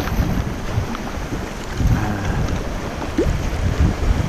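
Wind buffeting the microphone in irregular low gusts, over the wash of the sea around a kayak.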